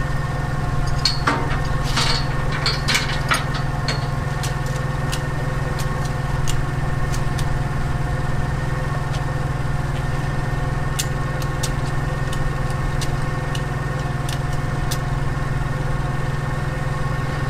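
A heavy-equipment engine idling steadily, with scattered light clicks and knocks, a cluster of them a couple of seconds in.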